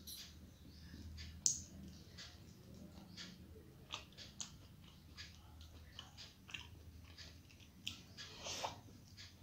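A person eating rice by hand from a steel plate: soft chewing and mouth sounds with scattered small clicks. There is a sharp click about a second and a half in, and a brief louder mouth sound near the end as a mouthful goes in.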